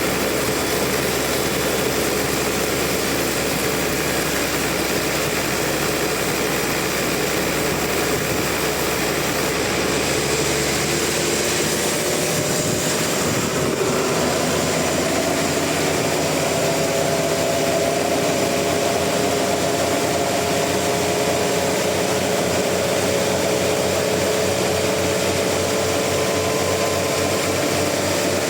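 Sawmill saw machinery running steadily at a sawmill, with a faint whine that slowly rises in pitch from about halfway through.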